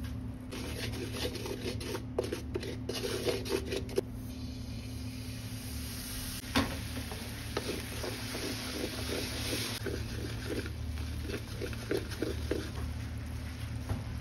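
Wooden spatula scraping and stirring a sizzling flour roux in a wok, in repeated short strokes. The high sizzle dies down about ten seconds in, as liquid goes into the pan and it turns to gravy.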